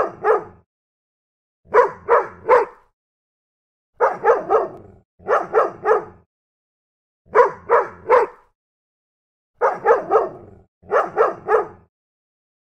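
A dog barking in quick bursts of three sharp barks, repeated over and over with short silent pauses between the bursts.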